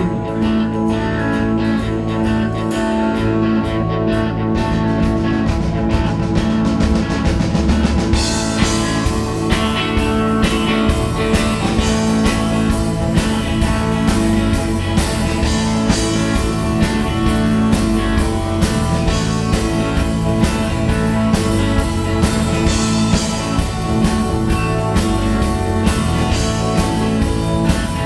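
Live rock band playing electric guitar, bass guitar and drums. The sound fills out and gets a little louder about eight seconds in.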